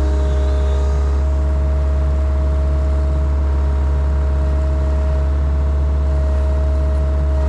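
Engine running at a steady idle: a deep, even hum with a few steady higher tones over it, unchanging throughout.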